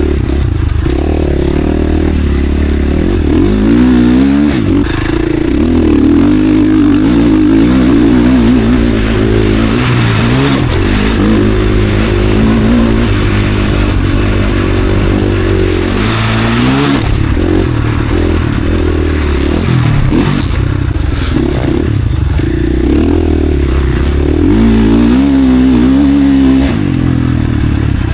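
KTM SX-F Factory Edition four-stroke single-cylinder motocross engine being ridden hard, its revs climbing and dropping again and again, every second or two.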